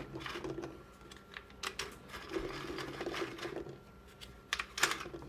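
Dye Rotor paintball loader and marker clicking and rattling irregularly while trying to feed rubber reballs, a sign that the loader is jamming on them. There are a few louder clacks, two of them close together near the end.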